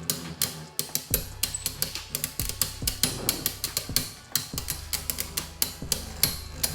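Beyblade Burst spinning tops clashing in a plastic stadium: rapid, irregular sharp clicks and knocks as the tops hit each other and the stadium wall, over background music with a steady low beat.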